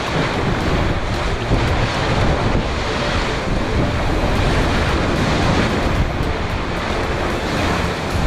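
Waves and bow wave rushing and breaking along the hull of a sailing ship under way, with strong wind buffeting the microphone.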